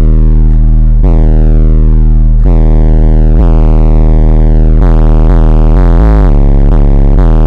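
Rap track played very loud through a car audio system, with heavy sub-bass notes and a synthesizer line that slides downward in pitch, repeating every second or so.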